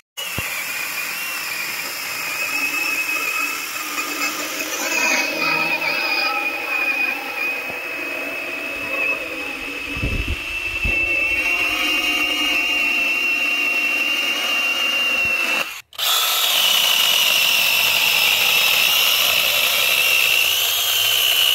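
Litheli U20 cordless 20-volt mini chainsaw running with a steady high whine. It cuts out briefly about sixteen seconds in, then starts again.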